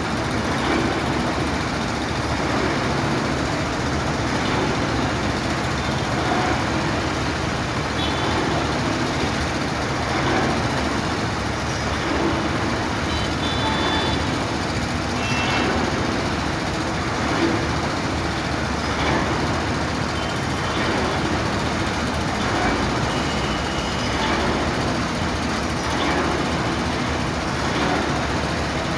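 An engine running steadily, with continuous machine or traffic noise.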